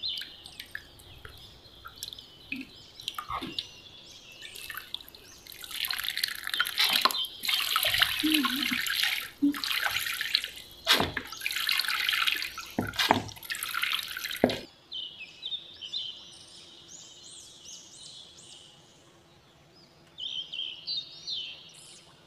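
Water splashing and being poured by hand into a plastic tub of water, with drips early on and a long stretch of heavy pouring that cuts off suddenly about two-thirds through. Faint high chirps follow.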